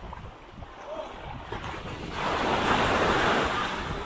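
Small waves washing onto a sandy beach, one swelling and breaking about halfway through, with wind rumbling on the microphone.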